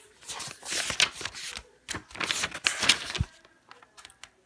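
Paper pages of a diary rustling in quick bursts as they are flipped through, with a soft bump about three seconds in.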